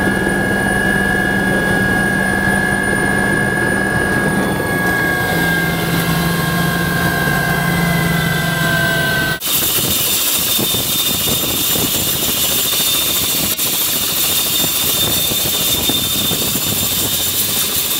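Helicopter turbine and rotor heard from inside the cabin: a steady whine whose tones dip slightly in pitch about five seconds in. About nine seconds in it cuts to the helicopter running outside on the pad, a brighter hiss with a high steady whine.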